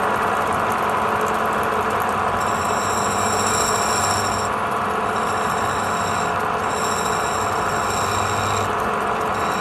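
Wood lathe running steadily, with a high whine that comes and goes in stretches of a second or two.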